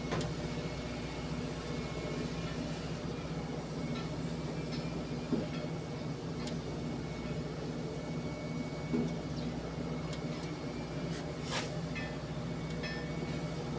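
A large engine running steadily at idle, an even low hum, with a few faint clicks over it.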